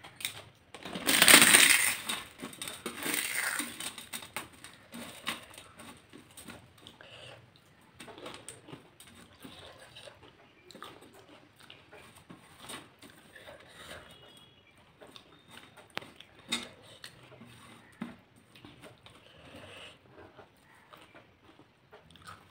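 Crisp fried papad crushed by hand over a steel plate: a loud crackle about a second in and a smaller one shortly after, then faint clicks and soft sounds of fingers mixing rice and eating.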